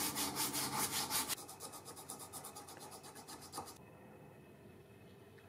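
Sandpaper rubbed back and forth by hand across a brass plate on a knife handle, sanding its top flat, in quick even strokes. The strokes turn lighter and faster after about a second and a half and stop about four seconds in, with a small knock just before they stop.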